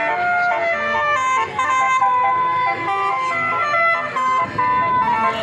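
A bus's multi-tone musical horn of the telolet or basuri kind, playing a melody of held notes that step quickly from one pitch to the next.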